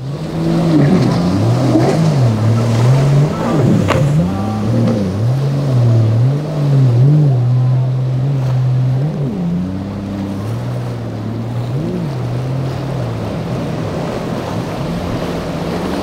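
Motorboat's outboard engine running hard through rough inlet waves, its pitch rising and falling again and again as the throttle and the boat's footing in the water change, over the rush and splash of breaking waves and wind.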